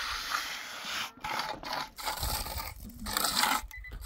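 Mason's trowel scraping and spreading cement mortar along the top of a concrete-block wall, in a run of rough strokes with short breaks between them.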